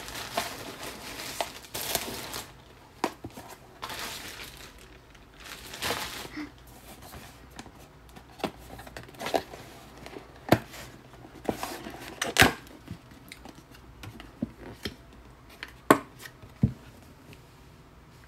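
Plastic food packaging being handled: crinkling and tearing for the first several seconds, then scattered sharp clicks and taps.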